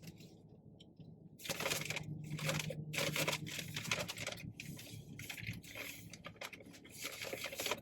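Crackling, scraping eating and food-handling noises close to the microphone, starting about a second and a half in and running until near the end.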